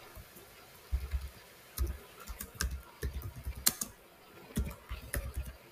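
Computer keyboard typing: a run of irregular, quick keystrokes starting about a second in.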